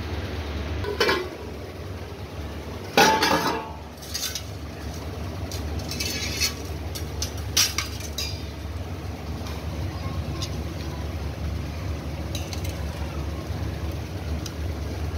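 A metal ladle clinks and scrapes against a metal kadai and a steel serving bowl while fish curry is scooped out. There are a few sharp clinks, the loudest about three seconds in with a brief ring, and a cluster of lighter clicks a little later, over a steady low hum.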